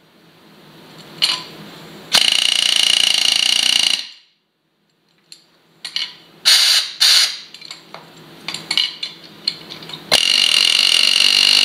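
Pneumatic air hammer driving wheel studs through a truck's front brake rotor hub, steel hammering on steel. It runs in a long burst of about two seconds, then several short bursts and clicks, then another run of about a second and a half near the end.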